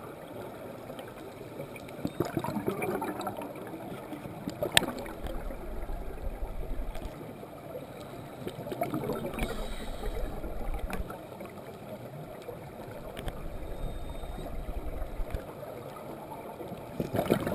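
Underwater sound heard through a GoPro HD2's waterproof housing: scuba divers' exhaled bubbles gurgling in surges every few seconds over a steady background hiss, with a few sharp clicks, the loudest about five seconds in.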